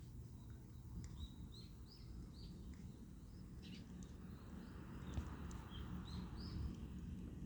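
A small bird chirping: a run of short, high notes, about two or three a second, pausing briefly in the middle, over a steady low rumble.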